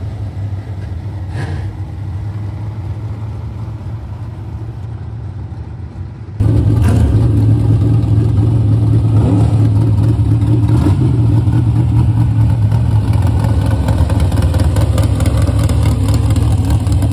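Dirt-track modified race cars running laps, heard through the fence. About six seconds in, a sudden cut to the much louder, steady idle of a USRA A-modified's V8 close by in the pits.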